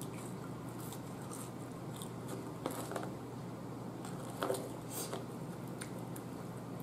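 A person chewing crinkle-cut French fries: soft, scattered mouth clicks and smacks, a few a little louder, over a faint steady hum.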